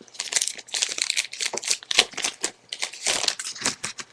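Crinkling and rustling of a Magic: The Gathering booster pack's foil wrapper being opened by hand, a dense run of irregular crackles.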